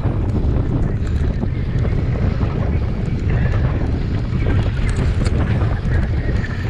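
Wind buffeting the microphone of a handlebar-mounted camera on a mountain bike running fast over a dusty dirt trail, with frequent small clicks and clatters from the tyres on loose gravel and the bike rattling. The rider is coasting, not pedalling.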